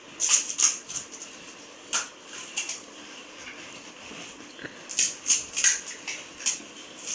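Crisp, hollow pani puri shells being cracked open with the fingers and crunched: clusters of sharp, dry crackles near the start, around two seconds in, and again from about five seconds.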